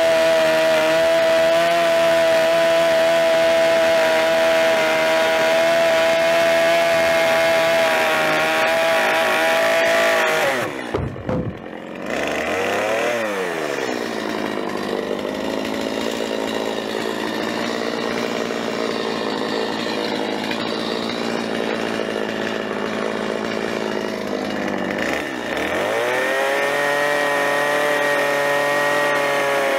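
Gas chainsaw cutting through the logs of a log-cabin wall at full throttle. About ten seconds in, the throttle drops, the saw revs once and idles for about ten seconds, then it is revved back up to full speed and cuts again near the end.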